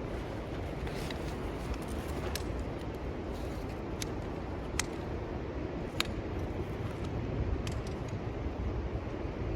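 Sharp clicks and light clinks of camp gear being handled and set up, five or six of them a second or so apart, over a steady low rumble.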